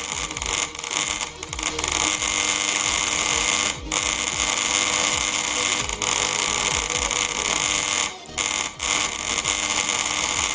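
Computer mouse button being spam-clicked very rapidly, the clicks blurring into a continuous rattle. There are a few brief pauses, about a second in and about four and eight seconds in.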